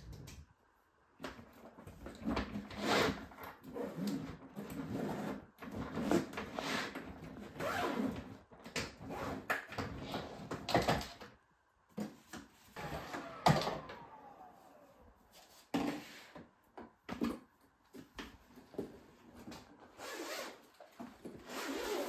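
Suitcases being handled and moved by hand: irregular rustling, scraping and knocking with short pauses.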